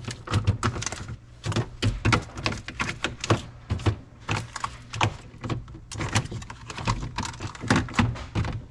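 Household objects being handled and set down: a quick, irregular run of knocks, clacks and clicks, of the kind made when putting containers and parts back into a refrigerator.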